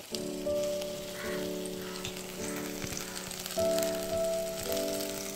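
Besan-battered pieces deep-frying in oil in a steel kadai, a steady crackling sizzle with many small pops as the batter puffs up. Background music with held notes that change about once a second plays over it.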